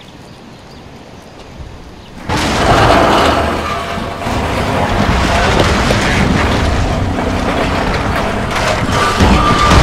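Quiet outdoor ambience, then about two seconds in a sudden loud, noisy rumble that carries on steadily, with scattered knocks.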